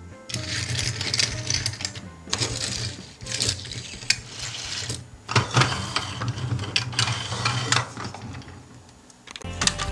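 Small toy cars and toy buses rolled and pushed across a hard tabletop: a rattling whir of little wheels in about three spells, with sharp clicks as the toys knock together.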